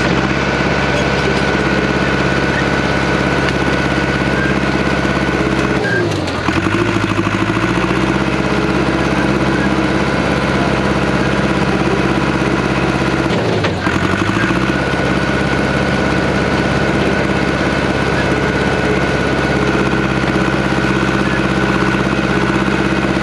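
A loader's engine running steadily, heard up close. Twice, about six and thirteen seconds in, the engine pitch drops sharply as it lugs under load, then climbs back.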